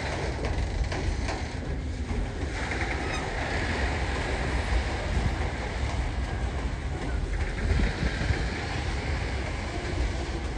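Container wagons of a freight train rolling past: a steady, heavy rumble of steel wheels on the rails, with clicking wheels, most frequent in the first couple of seconds.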